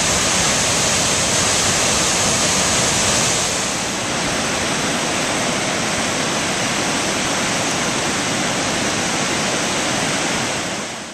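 Waterfall on the Genesee River: a steady rush of white water pouring over a rock ledge into the pool below. About four seconds in it becomes slightly quieter and duller, heard from farther down the gorge, and it cuts off abruptly at the end.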